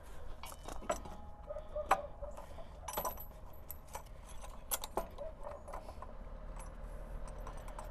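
Scattered metallic clicks and knocks as the steel post of a cultivator depth wheel is slid into its clamp bracket on the hoe frame and handled into place, over a low steady rumble.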